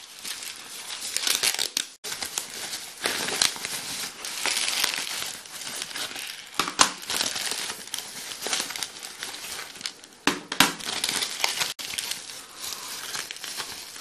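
Packaging being unwrapped by hand: continuous crinkling and rustling of the white wrapping around small plastic ball-bearing puzzle games, with a few sharper crackles.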